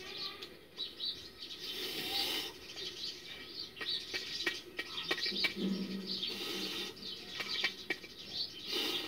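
Small birds chirping in the background, with a few scattered sharp clicks.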